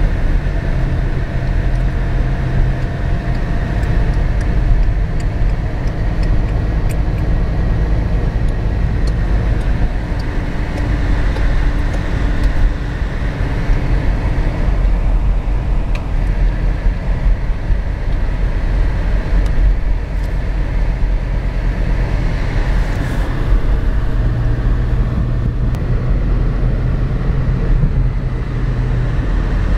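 Steady road noise inside a moving car's cabin: a low rumble of tyres on the road mixed with engine hum.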